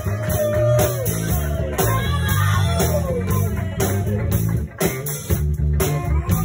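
Live band playing loudly, with a heavy bass line and drum kit hits and gliding melodic lines above.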